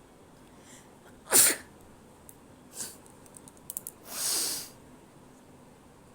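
A person sneezing: one sharp, loud sneeze about a second and a half in, then a softer breath, a few small clicks, and a longer breathy rush around four seconds in.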